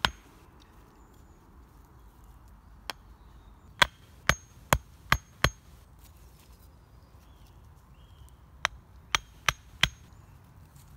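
Axe striking the tops of split log quarters, knocking them into the forest floor: sharp wooden knocks, a run of five about a third of a second apart, then four more near the end.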